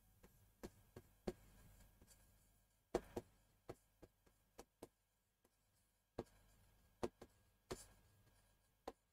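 Faint, irregular taps and clicks of a stylus pen on an interactive smartboard screen as a word is handwritten, about a dozen over the span, the sharpest about three seconds in.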